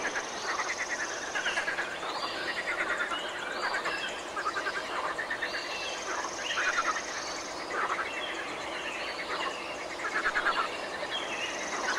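Frogs croaking in a chorus of short rattling calls, one every second or so, with birds chirping higher above them.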